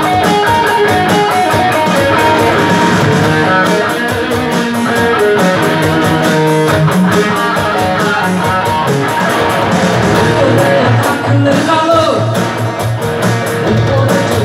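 A small band playing live: an electric lead guitar over an acoustic guitar and a keyboard.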